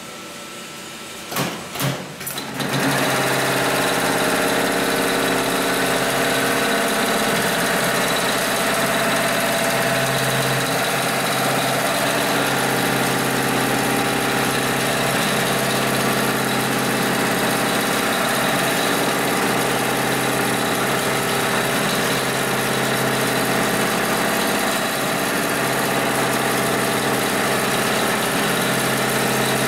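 Heavy-duty automatic pattern sewing machine (Hightex 72600PLK2) stitching layered synthetic webbing for a lifting sling at high speed. A few sharp clicks come first, then the machine starts about two and a half seconds in and runs steadily.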